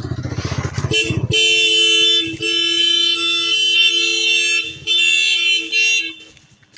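Royal Enfield Classic 350's engine running with an even low beat for about a second, then the motorcycle's horn sounding in three long steady blasts.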